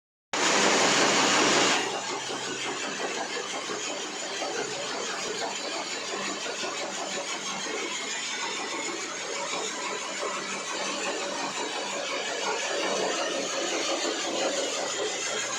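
Core cutting machine running as its bit drills. It is louder for about the first two seconds, then settles into a steady grinding run.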